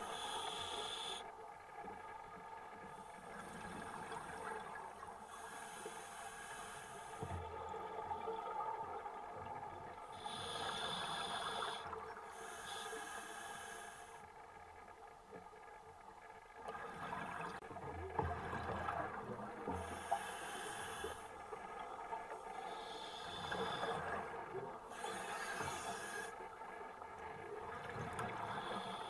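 Scuba diver breathing through a regulator underwater: a hissing inhalation and a bubbling exhalation in slow cycles every few seconds.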